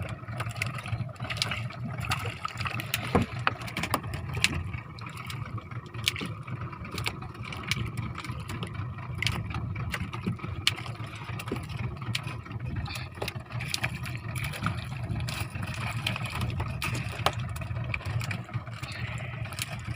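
A boat's engine running steadily, a low drone, with scattered short knocks and clicks.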